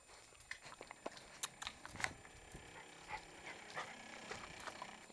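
Miniature pinscher puppies playing on a fleece dog bed: faint scuffles and small clicks, with soft puppy noises.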